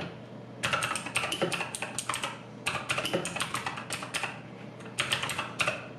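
Typing on a Redragon Kumara K552 mechanical keyboard with clicky Cherry Green-equivalent switches: quick runs of keystroke clicks with short pauses between them.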